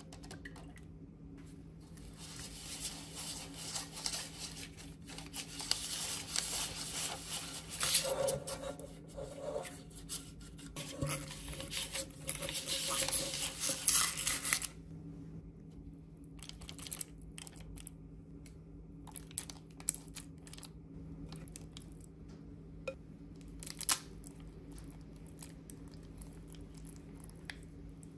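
Kitchen food-preparation sounds: about twelve seconds of busy scraping and rustling as ingredients are worked in a bowl, then scattered light knocks and clinks of utensils and dishes.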